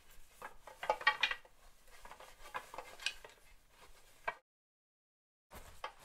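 Foley props handled by hand: hard objects clattering and clinking in irregular knocks, with a quick cluster of clinks about a second in and a sharp knock after about four seconds, then the sound cuts off suddenly.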